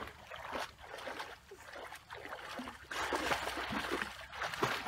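Water splashing and sloshing as a person wades through a shallow creek, louder from about three seconds in.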